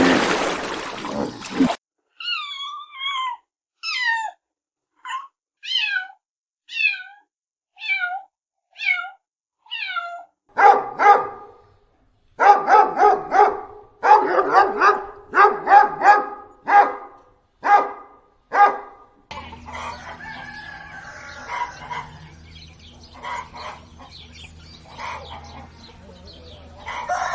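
Domestic animal calls: a string of about nine short, high, falling mews, typical of a kitten, then a run of rapid short barks or yaps from a dog, then fainter mixed animal calls over a steady low hum.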